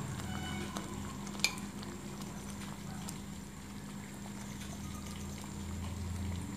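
A ladle scooping thick dal from an aluminium kadhai and pouring it into a glass bowl: faint wet sounds and light knocks, with one sharp clink about a second and a half in, over a steady low hum.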